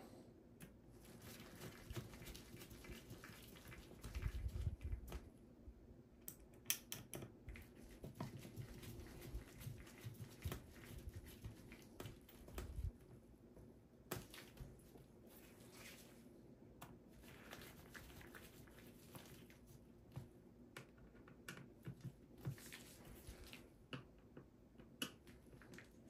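Faint scattered clicks and scrapes of a mini Phillips screwdriver turning the bottom-cover screws of a Dell Latitude 7400 laptop, with a soft low bump about four seconds in.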